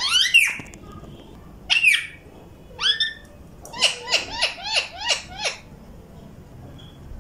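Alexandrine parakeet calling: a few single short, sharp calls, then a quick run of about seven calls in a row about four seconds in.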